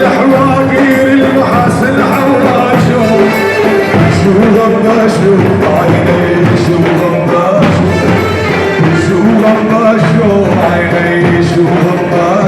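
Loud live Arabic folk wedding music from an amplified band, playing a melody of long held notes over a continuous accompaniment.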